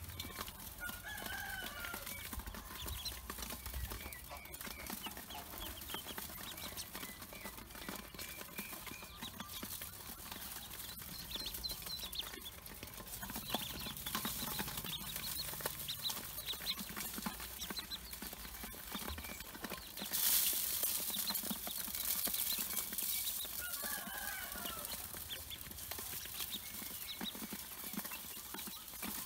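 Pekin ducklings peeping and pecking feed from a stainless steel bowl, their bills clicking on the metal. A chicken calls twice in the background, about a second in and again near the end, and a brief rush of noise comes about two-thirds of the way through.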